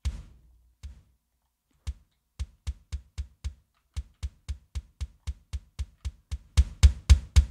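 Kick drum sample track from a screamo rock mix, played back on its own: a run of deep kick hits, each with a sharp click on top. The hits are spaced unevenly at first, then come in a faster, louder pattern of about four a second from about six and a half seconds in.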